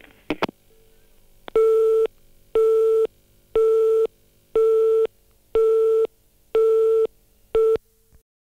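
Telephone busy tone left on an answering-machine message after the caller hangs up: a couple of sharp clicks of the line dropping, then a steady tone beeping about once a second, half a second on and half off, seven times. The last beep is cut short and the recording stops dead.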